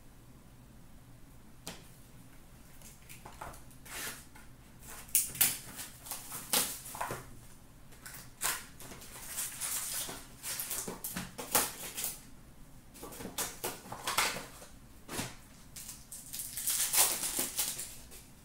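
A trading card box and its pack wrappers being torn open and handled, in a run of short crinkling, tearing and rustling bursts that starts a few seconds in and keeps on.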